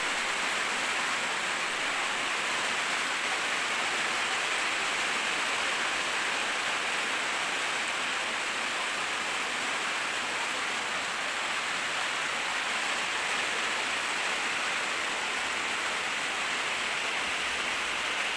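Steady rain falling: an even hiss that doesn't change.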